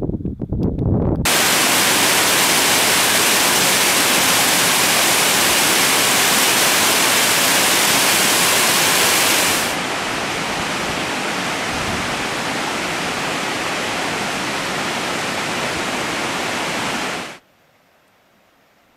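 Brief gusts of wind on the microphone, then a sudden, steady rushing hiss of flowing stream water. It drops in level about ten seconds in, runs on evenly, and cuts off near the end to a faint background.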